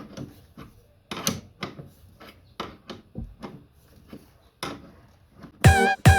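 Irregular metallic clicks and knocks, roughly two or three a second, as hand tools work on the strut's mounting bolt that isn't yet aligned. Guitar music comes in with loud chords near the end.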